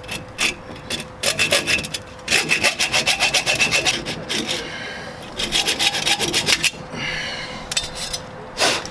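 Hand ratchet wrench clicking in three quick runs, several clicks a second, with a few separate metal clicks. It is tightening the U-bolt nuts that clamp the leaf spring pack with its new add-a-leaf.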